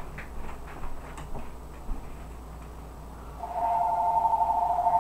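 Telephone ringing: a two-tone trilling ring starts about three and a half seconds in and is still sounding at the end, after a few faint clicks early in the quiet gap between rings.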